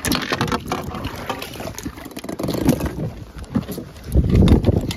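Handling noise from a fishing rod and spinning reel while a fish is hauled up: rapid irregular clicks, knocks and rustling. About four seconds in there is a louder, dull low thump.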